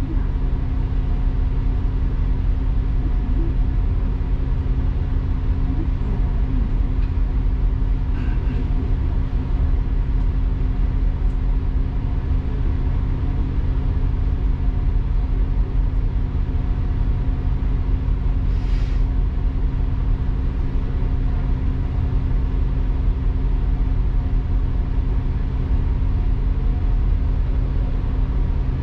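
Double-decker bus running, heard from inside on the upper deck: a steady engine and road rumble with a constant hum. A short hiss comes about two-thirds of the way through.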